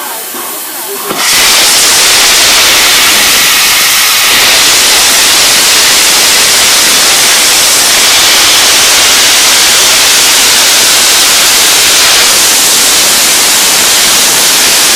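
Loud, steady hiss of steam from the Peppercorn A1 Pacific steam locomotive Tornado as it departs, starting suddenly about a second in.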